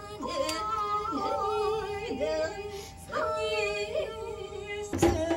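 Music: a woman singing a long melody with wide vibrato over steady held drone tones, with sliding downward pitch bends every second or so. Sharp drum strokes come in near the end.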